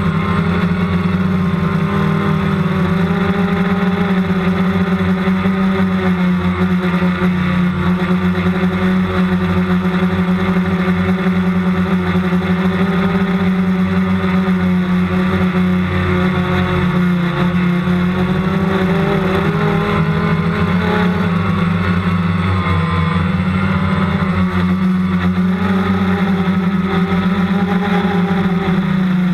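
Multicopter's electric motors and propellers humming steadily, close to the microphone, with only slight wavers in pitch.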